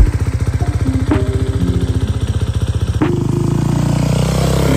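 Motocross dirt bike engine idling with a rapid, even pulse. About three seconds in there is a click, and the engine note turns smoother and slightly louder.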